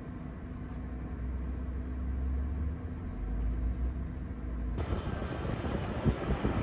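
Cab interior of a Nikola hydrogen fuel-cell electric semi truck accelerating: a low road and drivetrain rumble with a steady hum, slowly growing louder. About five seconds in it switches abruptly to the truck heard from outside, a broader rush of tyre and wind noise with a few thumps.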